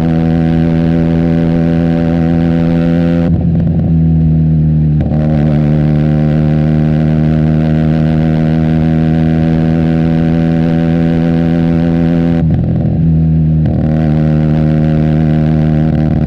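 Benelli TNT 300's parallel-twin engine through an Austin Racing aftermarket exhaust, running at a steady pitch while riding. Twice, about three seconds in and again about twelve seconds in, the note briefly falls off and shifts in pitch before settling steady again.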